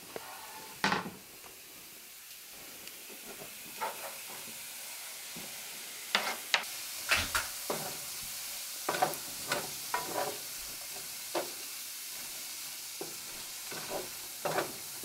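Diced onion, garlic and mushrooms sizzling steadily in a frying pan while a wooden spoon stirs them, knocking and scraping against the pan in scattered strokes.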